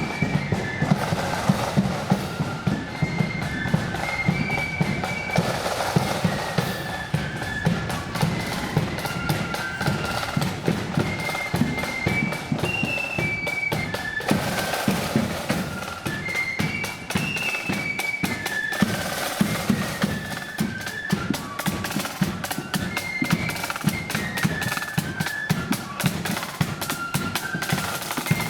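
Marching flute band playing a tune in the loyalist 'blood and thunder' style: a high flute melody over rapid snare-drum strokes and a heavy bass drum.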